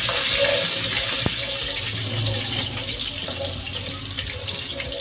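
Butter sizzling hard in hot frying oil in a nonstick pan: a loud, steady hiss that eases slowly.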